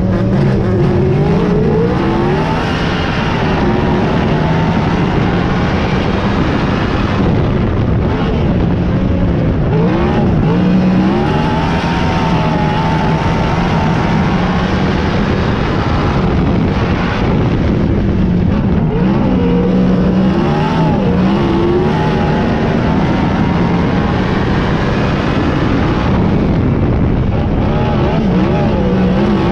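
Several sprint car engines running together in a race, loud and continuous, their pitches rising and falling as the cars accelerate and back off.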